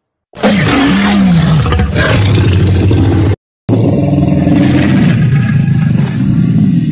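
Two Tyrannosaurus rex roar sound effects, each about three seconds long with a falling pitch, separated by a brief silence.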